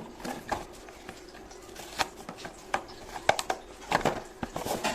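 Stiff plastic toy packaging being handled, giving irregular clicks and crackles as a toy helicopter is worked out of it.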